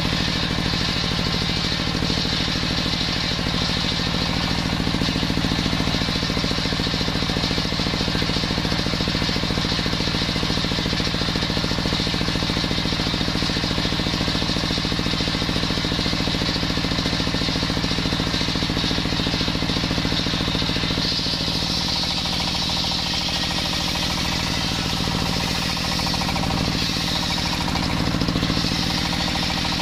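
Homemade belt-driven table circular saw running steadily under engine power, with a low chugging drone. About two-thirds of the way through, the blade bites into a jackfruit log and a higher hissing cutting sound joins in.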